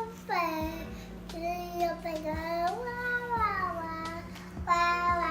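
A young child singing, long held notes that glide up and down in a simple tune with short breaks between phrases.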